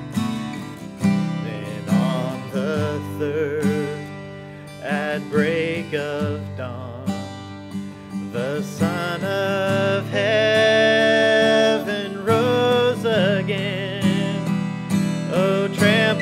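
Two acoustic guitars strummed in a slow worship song while a man sings the melody, holding long notes about two-thirds of the way through.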